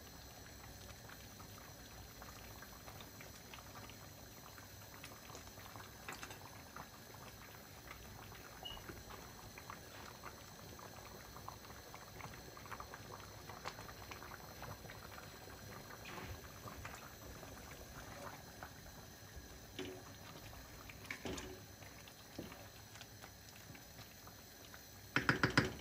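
Pot of ash reshteh, a thick noodle and bean soup, simmering on a gas stove with small bubbling pops, stirred now and then with a wooden spatula. Near the end comes a quick clatter of knocks against the pot.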